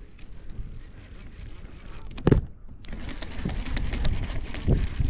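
Wind buffeting the microphone in a low, uneven rumble, with one sharp knock a little over two seconds in, after which a denser hiss of noise sets in.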